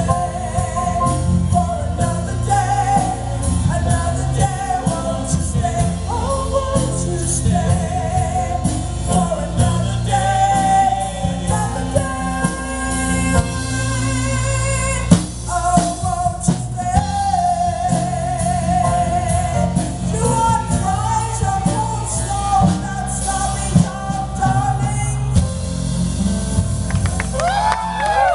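Live band playing a slow pop song, with a woman singing over it.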